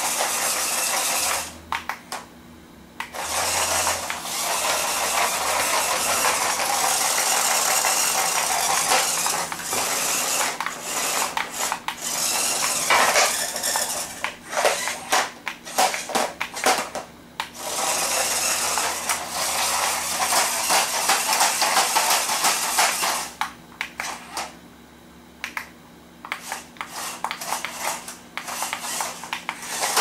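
Small remote-control spinning stunt car driving and tumbling on a laminate floor: its little electric motors whirring while its plastic body and wheels rattle and clatter against the floor. It stops twice, briefly about two seconds in and for a few seconds near the end.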